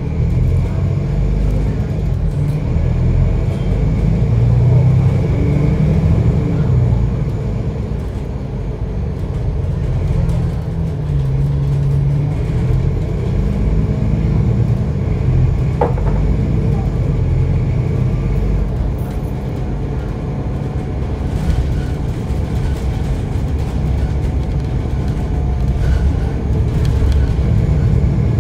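Bus engine and drivetrain rumbling under way, heard from on board, with its low drone rising and falling as the bus speeds up and slows in traffic. A short high squeak sounds about halfway through.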